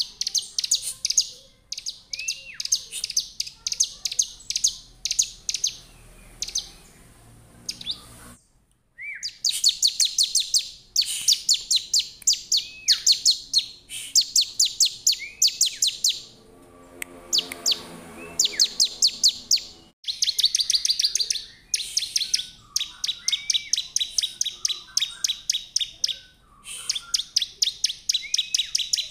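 A caged bar-winged prinia (ciblek) singing its challenge song: rapid runs of sharp, high chipping notes in bouts of one to two seconds, some opened by a lower down-slurred note.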